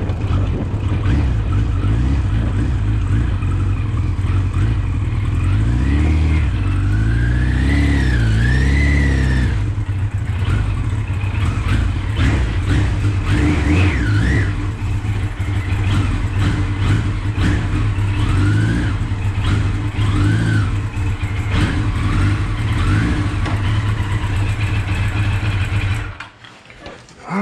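1983 Kawasaki GPZ 1100's inline-four engine running under way, revving up and dropping back several times as it goes through the gears. The sound cuts off suddenly about a second before the end.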